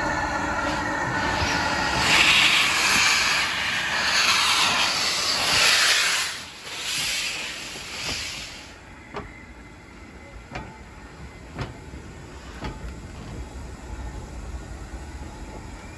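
LMS Ivatt Class 2 2-6-0 steam locomotive passing close by at low speed, blowing loud bursts of steam hiss from its open cylinder drain cocks for several seconds. Once it is past, its wheels click over the rail joints about once a second.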